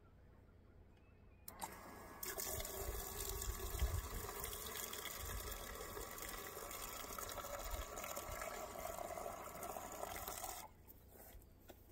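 Water running in a thin stream into a plastic jug, filling it. The flow starts about a second and a half in, runs steadily, and cuts off shortly before the end.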